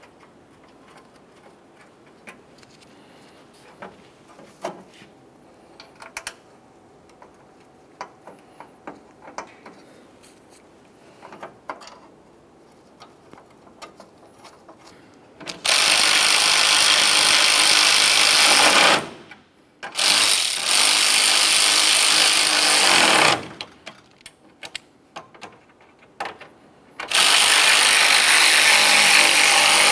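Power ratchet running in three bursts of about three to four seconds each, snugging up the hood latch mounting bolts. Before it there are only faint small clicks of the bolts and latch being handled.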